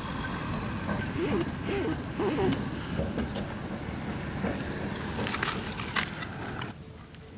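Roasted snail shells clicking and cracking as the snails are picked out by hand, with sharper clicks near the end, over steady background noise that falls away just before the end.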